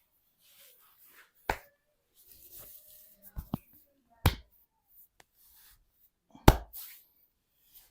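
Hands giving a percussive massage: a handful of sharp smacks a second or two apart, two of them in quick succession and the loudest near the end, with soft rubbing and rustling of hands on skin and cloth between them.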